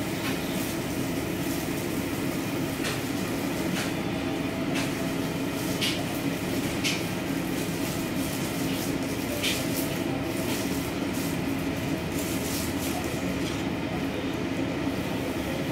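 A silicone spatula scraping and tapping a frying pan and plate as stir-fried minced beef and bean sprouts are pushed out onto the plate. The spatula makes a dozen or so short clicks over a steady low hum.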